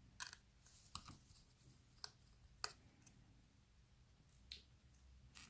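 Faint, sparse clicks and light taps, about six in five seconds, from small tools and parts being handled during an iPhone 6 screen repair.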